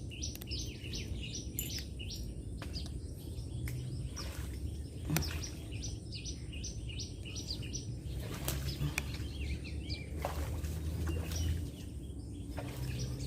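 Birds chirping rapidly in a dense, continuous chorus, with a few sharp knocks now and then and a steady low rumble underneath.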